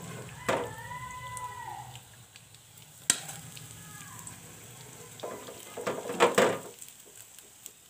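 Potato tikkis shallow-frying in oil in a nonstick pan, a low steady sizzle, with a slotted steel skimmer scraping and knocking against the pan as the tikkis are lifted out. The sharpest knock comes about three seconds in, and a cluster of scrapes follows around six seconds in.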